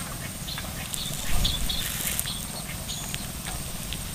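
Outdoor riverbank ambience: a steady low rumble like wind on the microphone, with many short scattered chirps and clicks and a thin, steady high-pitched tone; the sound swells briefly about a second in.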